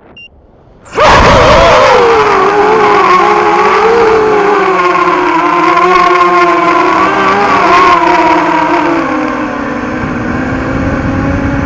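Walkera F210 racing quadcopter's brushless motors and propellers whining. The sound starts suddenly about a second in, and its pitch wavers up and down with the throttle before settling a little lower near the end.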